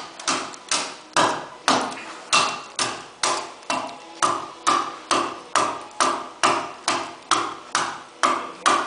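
Hand adze chopping into red cedar in a steady rhythm, about two and a half sharp chops a second, each dying away quickly.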